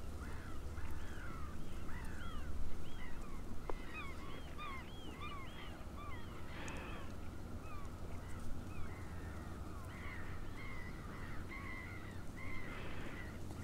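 Several birds calling repeatedly, many short rising-and-falling calls overlapping one another, over a steady low rumble.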